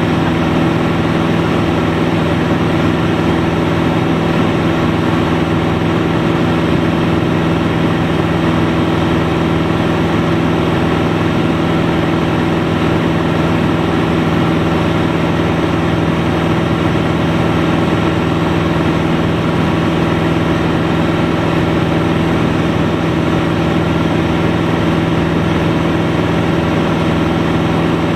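Single-engine light aircraft's engine and propeller running steadily in cruise, a constant drone heard from inside the cockpit.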